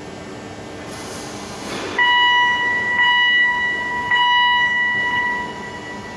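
Industrial warning signal: a loud, steady electronic tone that switches on suddenly about two seconds in. It sounds for about four seconds with two brief breaks before fading out, over the steady background of the factory hall, just after a short hiss.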